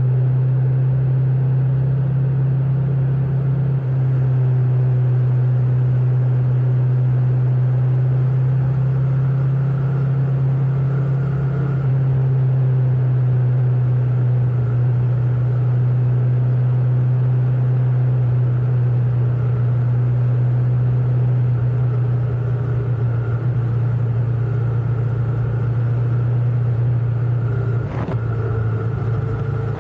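Motorcycle on the move: a steady, loud low engine drone with road and wind noise, and a brief click about 28 seconds in.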